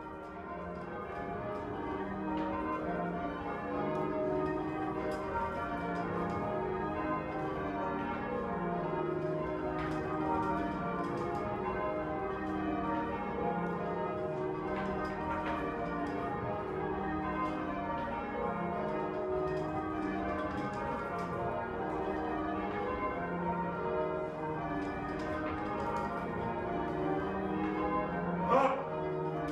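Church bells rung in changes, full-circle English change ringing: a continuous stream of bell strokes overlapping as each bell sounds in turn. A brief rising sound cuts in near the end, louder than the bells.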